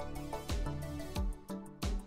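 Background music with a steady beat, about three thumps every two seconds under sustained melodic tones.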